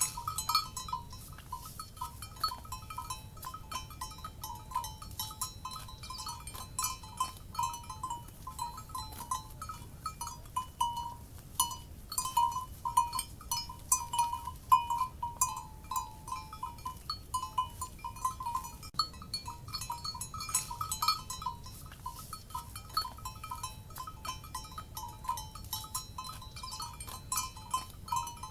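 Cowbells on grazing livestock clanking continuously and irregularly: many quick metal strikes ringing at the same few pitches, over a low steady rumble.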